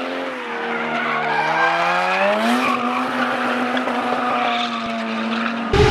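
A drifting car's engine is revving under load with tyres squealing in a slide. The engine note sags, climbs about two and a half seconds in, then holds steady.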